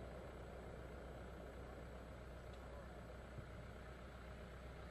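Faint, steady low hum and background noise while a firework shell climbs, with no burst and no whistle. One faint tick comes about three and a half seconds in.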